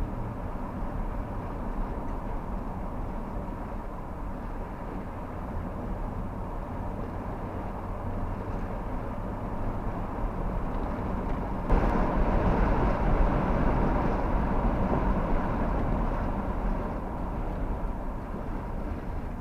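Steady road noise of a moving vehicle, a low rumble with a faint steady whine. It gets louder about twelve seconds in and eases off again near the end.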